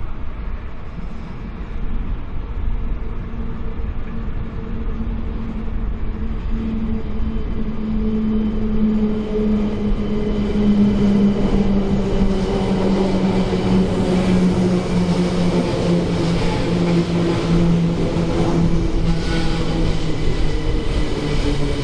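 SNCB AM08 Desiro electric multiple unit moving along the platform. Its traction motors whine with a tone that slowly falls in pitch through the second half, over a steady rumble of wheels on rail.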